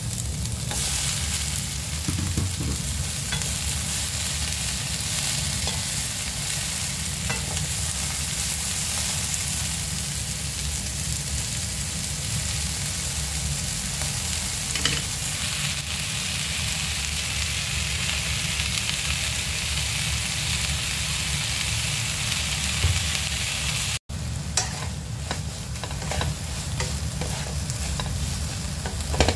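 Sliced onions and bell pepper strips sizzling in oil in a nonstick frying pan, stirred and tossed with a wooden spatula, with small scrapes and taps of the spatula on the pan. The sizzle breaks off for an instant about three-quarters of the way through.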